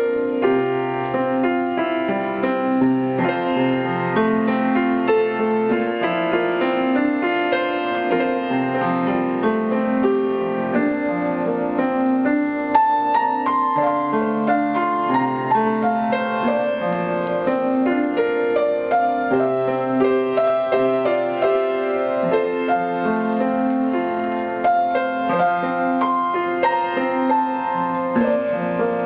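Solo piano playing an original composition: bass notes under a melody, at an even loudness throughout.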